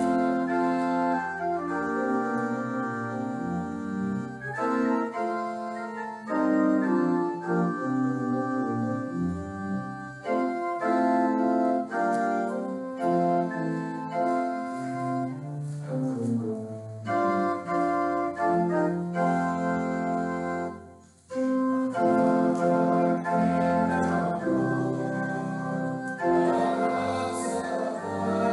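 Organ playing a hymn tune in held, changing chords, with a brief break about two-thirds of the way through.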